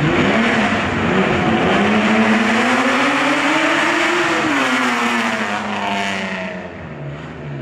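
Rally car engine at hard throttle, its pitch rising steadily for about three seconds and then falling away, over loud road and tyre noise that fades near the end.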